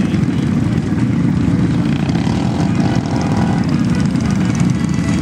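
ATV engines running with a steady low rumble.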